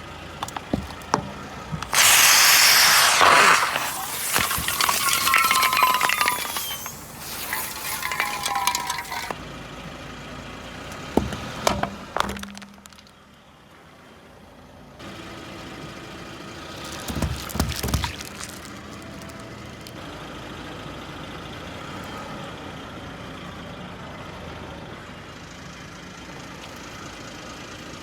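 Objects crunching and shattering, glass among them, as a car's tyres roll over and crush them; the loudest crushing comes in a cluster near the start, with shorter cracks about halfway through, then the car's engine runs steadily.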